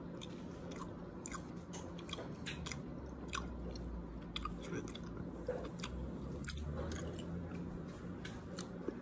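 A person chewing a mouthful of poke close to the microphone, with many small irregular wet mouth clicks, over a low steady hum.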